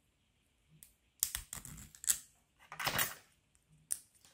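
Small 3D-printed plastic puzzle pieces clicking and rattling as they are handled and pushed together, in a few short clusters of clicks with one sharp click near the end.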